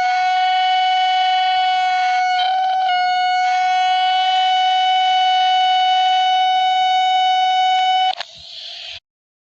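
Emergency alert alarm tone played in reverse: one steady, buzzy tone held for about eight seconds with a few brief glitches, then a short, quieter noisy swish and a cut to silence.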